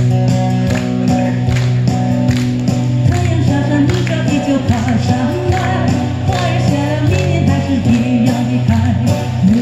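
Amplified live performance from a Chinese folk song medley: guitar and a steady beat under sustained notes, with a woman's voice singing into the microphone from about three seconds in.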